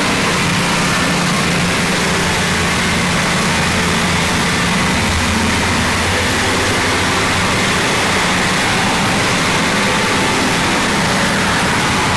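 Harsh noise wall: a dense, unchanging wall of loud distorted noise over a steady low drone.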